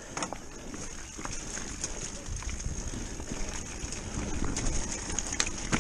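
Electric mountain bike rolling over a rough, rocky dirt trail: a steady low rumble of tyres and wind on the microphone, with scattered sharp knocks and rattles from the bike jolting over stones.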